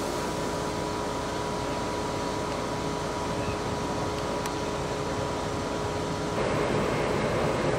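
Liebherr LR11000 crawler crane's engine running steadily, a mechanical hum with a steady whine in it. About six seconds in, the whine stops and the noise turns louder and rougher.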